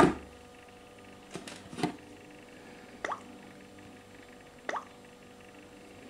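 Samsung Galaxy S3 touch sounds as the screen is tapped through its settings: short water-drop plops, each rising quickly in pitch. A loud one comes at the very start, two close together between one and a half and two seconds in, then single plops about three seconds and nearly five seconds in.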